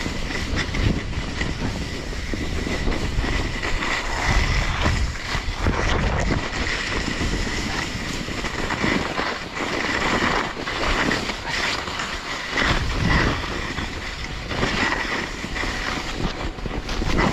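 Snowblades sliding and scraping over packed, tracked snow, with wind buffeting the microphone as a steady low rumble under the hiss of the snow.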